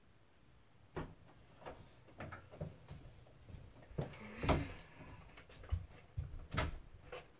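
Clothes and hangers being handled at a bedroom closet: rustling with a run of light knocks and clatters, starting about a second in, the loudest around the middle and near the end.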